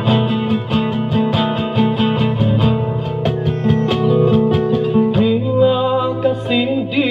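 Acoustic guitar played in a run of picked notes, with a voice coming in singing about five seconds in.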